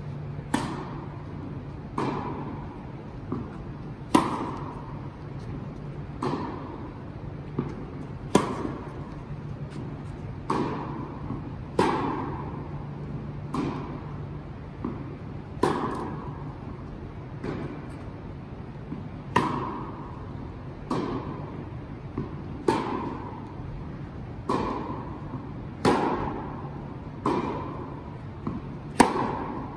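Tennis ball struck by rackets and bouncing on an indoor hard court during a rally: sharp pops every one to two seconds, each followed by a ringing echo in the large hall.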